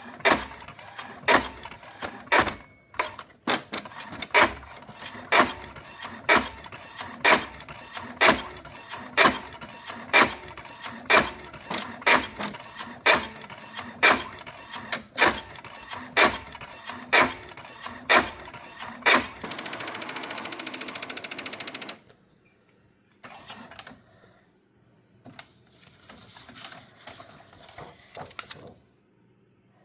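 Epson L15160 inkjet printer printing, with a sharp loud click about once a second for most of the run. Near the end comes a couple of seconds of steady whirring, then a few quieter mechanism sounds before it stops. The owner takes the noise for gears not meshing tightly and rubbing, the cause of the misaligned printing.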